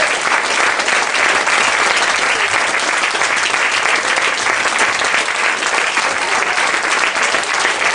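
Audience applauding: dense, steady clapping with no let-up.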